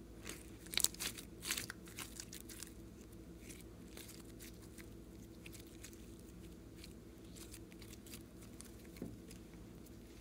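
Silver glitter slime being squeezed and stretched by hand, giving wet clicks and crackling pops, densest in the first two or three seconds and sparser after. A faint steady hum sits underneath.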